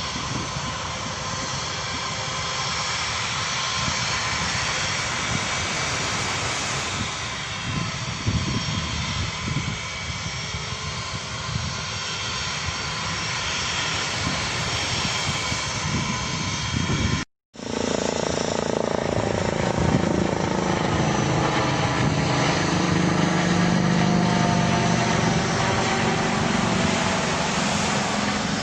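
Airplane engine noise over a loud haze of noise. The sound cuts out for a moment just past halfway, then resumes as a steadier hum.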